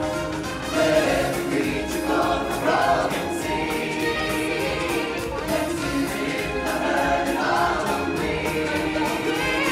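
A choir singing over accompanying stage-show music with a steady beat.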